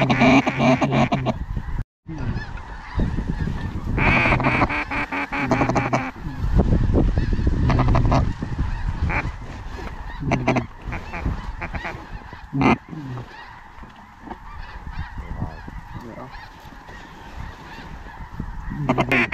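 Duck calls blown at incoming ducks: loud runs of fast, evenly repeated quacks in bursts a few seconds apart, then scattered single notes.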